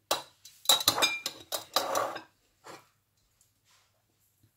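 Metal kitchen tongs clicking shut and clinking against a ribbed glass jar while shredded red cabbage is dropped in. Several quick clinks come in the first two seconds, one with a short glassy ring, then only a few faint taps.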